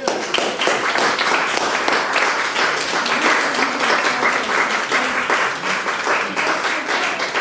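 Audience applauding, a dense steady run of many hands clapping.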